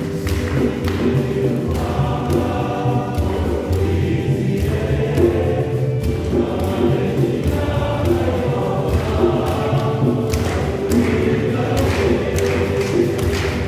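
A choir singing a lively song to a steady drum beat.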